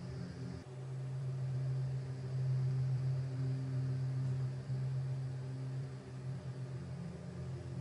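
A low, steady drone of several held tones that swell and fade every second or two, over a faint hiss, on a school corridor's security-camera audio. The recording is known for sounding like eerie, choir-like chanting.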